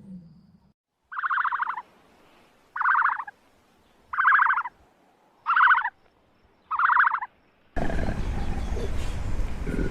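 An animal calling five times, each call a short buzzy note of about half a second, one every second and a half or so. Near the end it cuts abruptly to a steady, noisy outdoor background with a low rumble.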